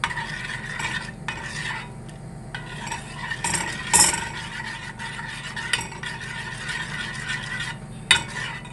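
Metal spoon stirring a thick oat-and-flour porridge in a stainless steel pot, scraping around the bottom. The spoon knocks against the pot sharply about four seconds in and again near the end.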